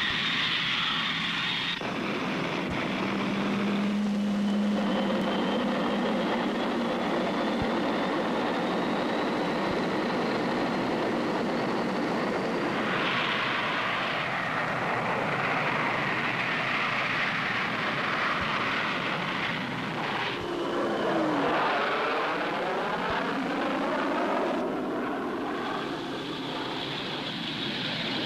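Jet aircraft engines running, in several shots cut together: a high whine that slowly rises in pitch, then a jet passing by with its sound sweeping down in pitch about twenty seconds in.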